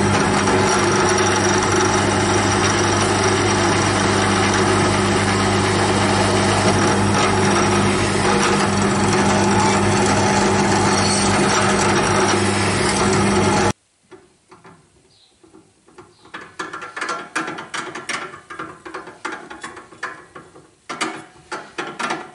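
Bench drill press running and drilling into a steel block, a steady motor hum with the cutting noise over it. It stops abruptly about two-thirds of the way through, followed by a run of light, irregular clicks.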